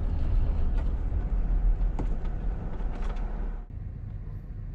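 Road and engine noise heard from inside a moving camper van: a steady low rumble with tyre hiss. About three and a half seconds in, it drops abruptly to a quieter, duller rumble.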